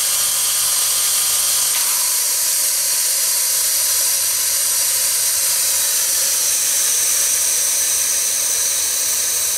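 Clarke 100-litre silent air compressor running its first run-in with the air outlet fully open: a steady hiss of air blowing straight out, with the motor itself very quiet.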